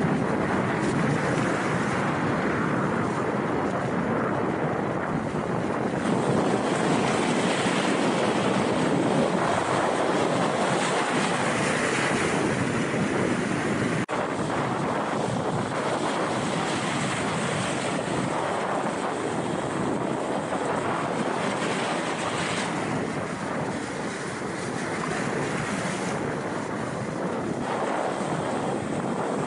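Surf breaking and washing over a rock breakwater, a steady rush of sea noise, with wind buffeting the microphone.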